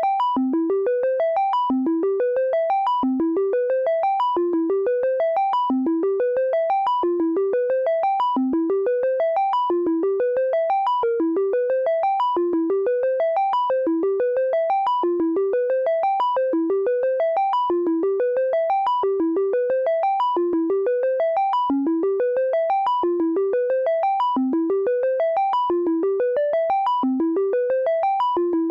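Elektron Monomachine synthesizer playing an arpeggio. A stream of short, evenly spaced notes climbs in pitch and restarts from the bottom about every second and a half, looping steadily throughout.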